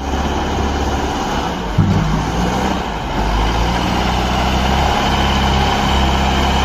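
Electronic truck-engine sound from a toy truck: a steady, low engine rumble like a heavy truck idling, with a brief louder surge about two seconds in.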